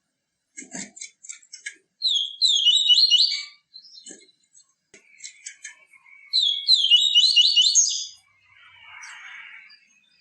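Papa-capim seedeater singing: two fast phrases of repeated rising whistled notes, separated by scattered sharp chips. A soft hiss follows near the end.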